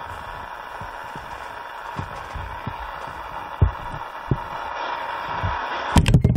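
CB radio speaker giving a steady hiss of static from an open carrier with no voice on it, a few soft low thumps underneath. About six seconds in, several loud clicks break the hiss.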